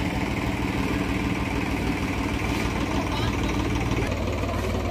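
Tractor engine idling steadily with an even, unchanging hum, its tipping trailer raised after dumping its load.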